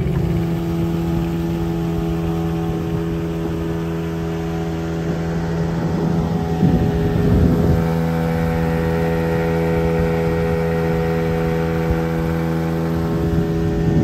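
A motorboat's engine running steadily at constant speed while the boat travels along the river.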